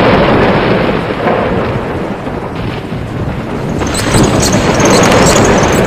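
Thunderstorm sound effect for a logo intro: a loud, continuous thundery rumble, joined by crackling from about four seconds in.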